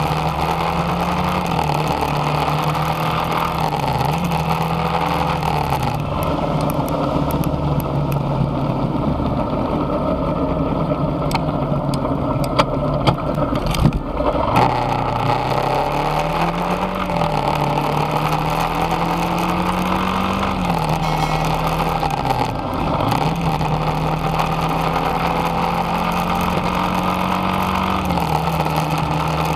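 Motorcycle engine running under way, its pitch rising and falling as the throttle opens and closes. A few sharp knocks come about halfway through.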